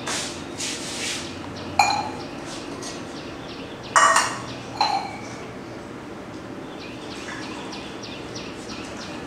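Dishes clinking: three sharp, ringing clinks, about two, four and five seconds in, with faint lighter taps between them.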